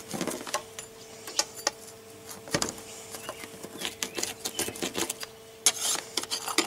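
Pizza cutter wheel rolling through a grilled pizza's crust on a perforated metal pizza pan: a run of irregular clicks and crunches as it cuts.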